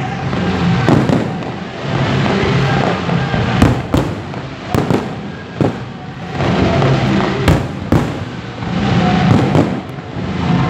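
Fireworks display: aerial shells bursting in a string of sharp bangs over a steady crackling hiss.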